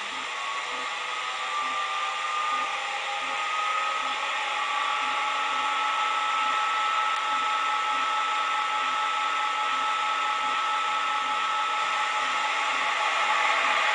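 ESU LokSound decoder playing the sound of a CFR LE 6650 electric locomotive with IGBT traction converters, through the model's small speaker. A steady fan hiss carries whining converter tones that rise in pitch over the first few seconds and then hold, while the whole sound slowly grows louder.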